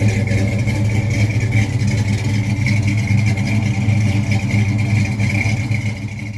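A car engine running steadily at a constant pitch, cutting off suddenly at the end.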